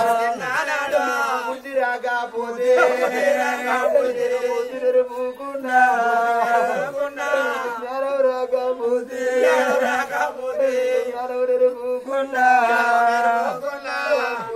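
Oggu Katha folk sung narration: a voice singing in drawn-out, wavering phrases over a steady drone.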